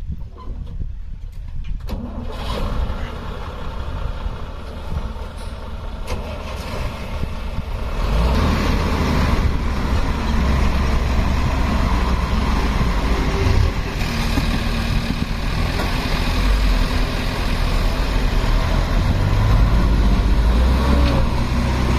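Diesel engine of a loaded Ashok Leyland six-wheel tipper truck running, growing much louder and heavier about eight seconds in as the truck pulls away across the field under load.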